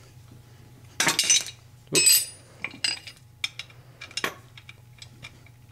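Wrenches clinking against the bolt and coupling nut of a homemade ball-joint splitter as it is worked between an ATV's ball joints. There are about a dozen separate metal clinks and taps, with a brighter, ringing clink about two seconds in.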